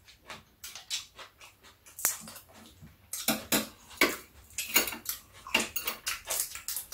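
Irregular clicks and taps of metal chopsticks and tableware on a metal plate as grilled fish is picked apart and eaten.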